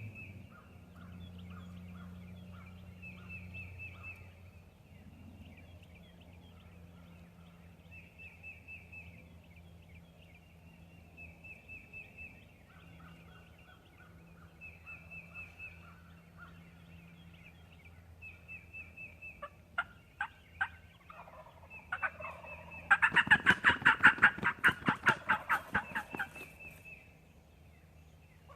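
Turkey calling: a faint run of quick notes repeats every three to four seconds. Near the end comes a loud series of about a dozen rapid yelps lasting some three seconds. A steady low hum runs underneath.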